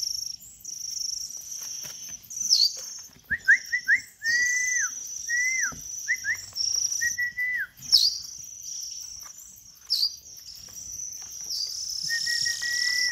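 Eurasian skylark nestlings begging: a continuous high, thin calling, broken by quick downward flicks. Lower whistled notes, each ending in a downward slide, come in a run from about three to eight seconds in and again near the end.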